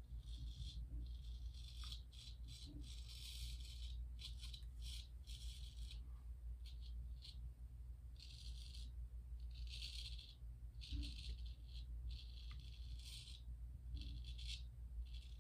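Gold Dollar 208 straight razor scraping through lathered stubble: a long series of short, crisp scraping strokes, each under a second, over a steady low hum.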